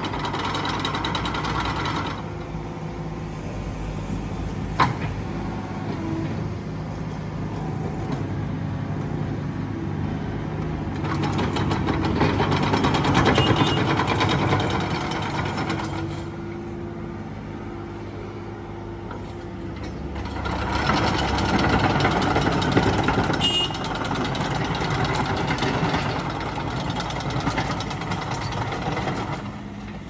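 Yanmar B27 mini excavator's three-cylinder 3TNE82A diesel engine running, its note growing louder under load twice as the machine is worked. A single sharp click about five seconds in.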